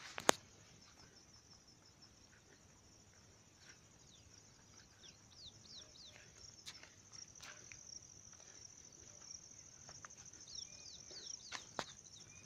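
Faint outdoor ambience: a steady, high, pulsing insect trill with many short, downward-sweeping bird chirps over it. A single sharp click comes just after the start and is the loudest sound, with a few softer clicks later.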